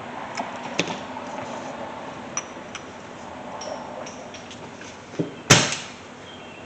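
Light clicks and taps of metal tools and caliper parts being handled on a workbench, with a sharp loud knock about five and a half seconds in.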